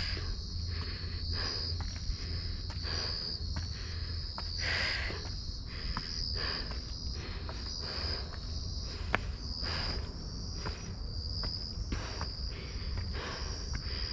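Night chorus of crickets, a steady high chirring that swells and fades in pulses. A person's footsteps crunch and tap along a path and up outdoor steps.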